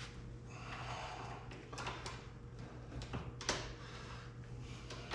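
Soft-top fabric rustling and a few sharp clicks and knocks from the top's header bows and latches being handled on the windshield frame.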